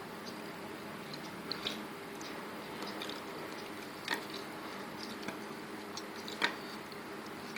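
Scattered, irregular light clicks and taps of kitchen work, the sharpest about six and a half seconds in, over a steady low hum.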